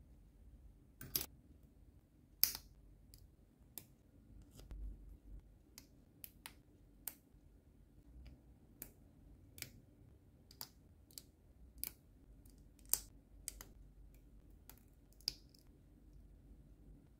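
Plastic model kit parts of an HG 1/144 Shin Burning Gundam being handled and snapped together: a string of sharp plastic clicks at irregular intervals, roughly one a second, with a few louder snaps among them.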